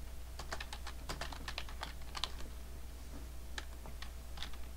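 Typing on a computer keyboard: a quick run of keystrokes in the first half, then a few scattered keys.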